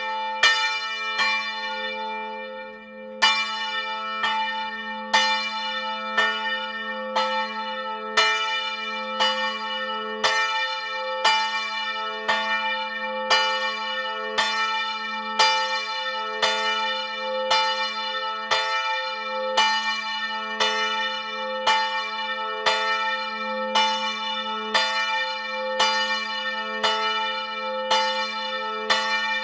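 Large church bell swinging in its steel bell frame, its clapper striking just over once a second in a steady rhythm. Each stroke rings on into the next over a continuous deep hum. There is a short pause in the strokes about a second in before the regular rhythm sets in.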